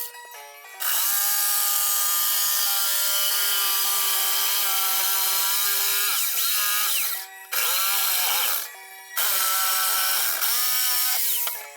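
Electric jigsaw cutting a wooden board in three runs: one long cut of about six seconds, then two short ones. The motor's pitch sags briefly near the end of each run.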